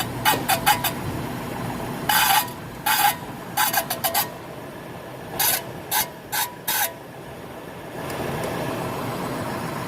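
Car squeaking while being driven: short high squeaks in quick runs, then single longer squeals, over a steady low running noise. This is the noise the car is being checked for.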